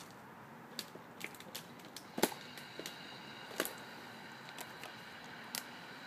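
Scattered, irregular light clicks and ticks, the sharpest a little over two seconds in, with a faint steady high tone setting in at about the same time.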